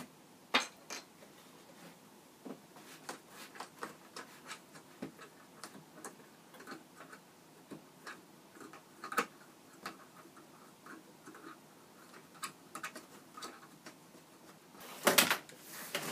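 Irregular small clicks and scrapes of black fasteners being pulled out through a cardboard box panel, then a louder burst of cardboard rustling near the end as the box is tipped and the car on its tray slides out.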